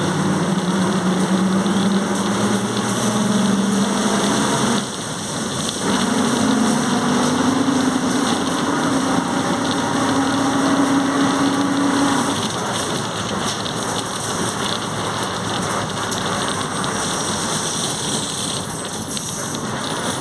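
Volkswagen 17.230 OD bus's transmission whining loudly as the bus gathers speed, one steady tone that breaks off for about a second around five seconds in, comes back higher and climbs slowly, then fades into steady road and running noise about twelve seconds in. The uploader calls this transmission noise loud, growling.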